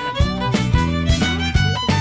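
Background pop music with a steady beat and a fiddle-like lead melody, no singing.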